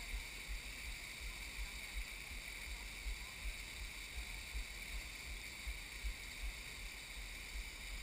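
Steady rush of a small waterfall running down a rock slab, with uneven low wind rumble on the microphone.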